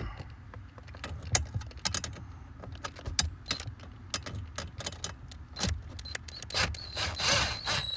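Irregular metallic clicks and clinks of hand tools and metal fasteners being handled during a repair, with a short rushing noise near the end.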